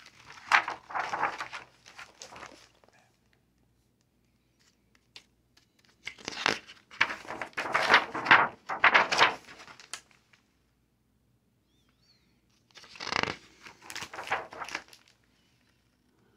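Pages of a hardcover picture book being turned and handled, paper rustling and crinkling in three bouts: near the start, in the middle, and near the end.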